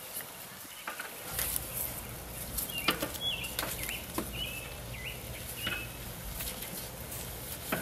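Metal tongs clicking and knocking against a charcoal grill grate while husk-on ears of corn are turned, the dry husks rustling. A few short high chirps come in the middle.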